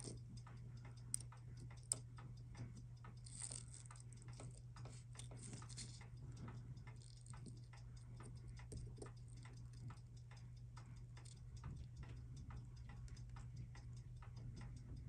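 Faint, rapid small metallic ticks and clicks of steel tweezers working on a disassembled mechanical watch movement, with two sharper clicks in the first couple of seconds.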